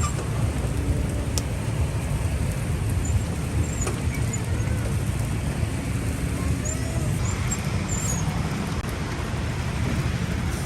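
Steady street traffic noise: a constant low rumble of passing vehicles, with faint voices in the background.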